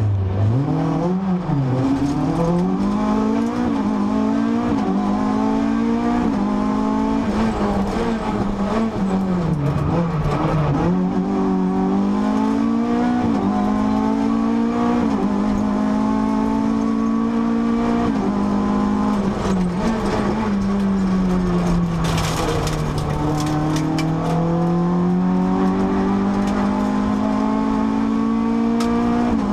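Renault Clio RS rally car's four-cylinder engine heard from inside the cabin at stage pace, revving hard and shifting up through the gears with repeated climbs and drops in pitch. A little past two-thirds in the revs fall away low with a short rush of noise, then climb steadily again.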